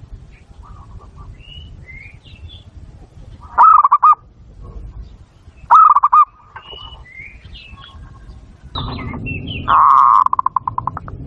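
Zebra dove (perkutut) cooing in loud bouts of rapid staccato notes, about four and six seconds in. A longer bout near the end breaks into a fast run of notes that fades out. Smaller birds chirp faintly between the bouts.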